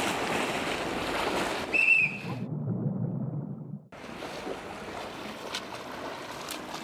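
Swimming-pool water sounds: steady lapping and splashing, with a short high whistle about two seconds in. Just after comes a muffled stretch of about a second and a half, dull as if heard underwater. The lapping and splashing then return as a swimmer does freestyle.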